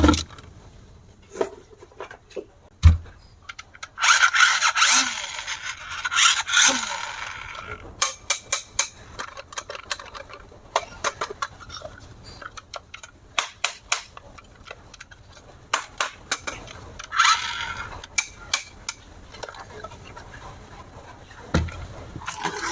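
Handling noise: a run of short clicks and knocks, with two stretches of rustling, one about four seconds in lasting a few seconds and a shorter one later.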